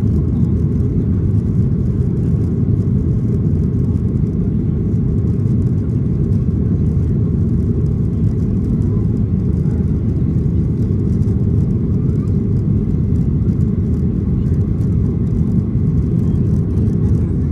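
Steady low rumble of a Boeing 737-800's CFM56-7B turbofan engines and airflow, holding an even level throughout.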